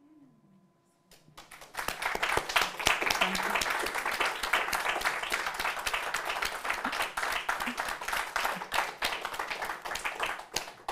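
Applause from many hands, starting about a second in and going on steadily.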